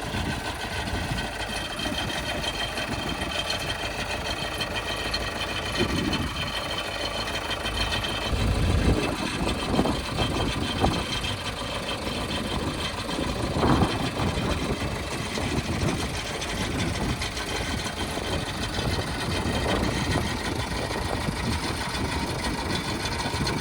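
Heavy machine's diesel engine running steadily, with several short thuds partway through.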